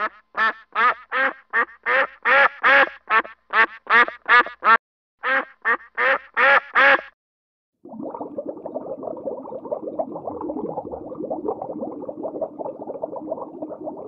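A rapid run of short, honking, quack-like swan calls, about two or three a second, stopping about seven seconds in. After a brief gap, a steady underwater rushing noise follows.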